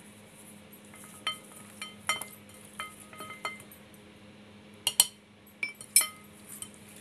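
Metal spoon clinking against a porcelain plate: a series of sharp, ringing taps, the loudest pair about five and six seconds in.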